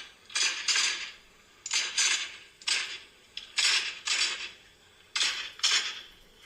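A string of gunshots, about nine sharp reports, many in quick pairs, as the roosters are shot.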